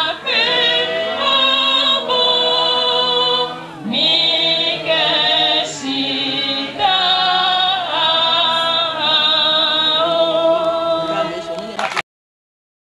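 Women singing together into microphones, with long held notes. The singing cuts off suddenly near the end.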